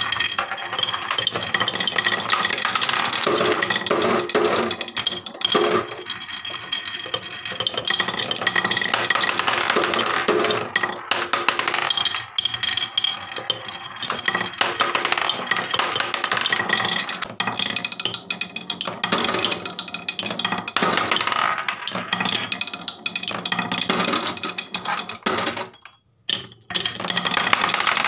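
Glass marbles rolling and clattering down grooved wooden marble-run tracks, with a dense run of clicks and knocks against the wood and each other. It drops out briefly about two seconds before the end.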